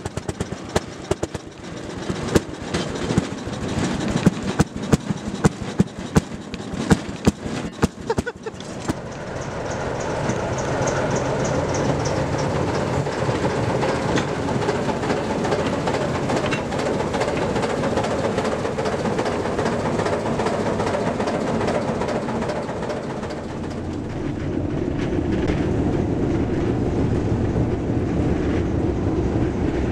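Rail motorcar (Fairmont speeder) clattering over rail joints and a switch: a fast, irregular run of sharp clicks. About nine seconds in, this gives way to the steady running of an Alco S3 diesel switcher locomotive, which grows louder near the end as it is heard from inside the cab.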